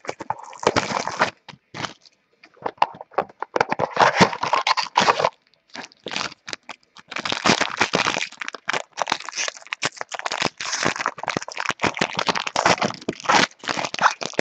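Packaging crinkling and crackling with irregular clicks as a mini box of trading cards is opened and the cards inside are handled.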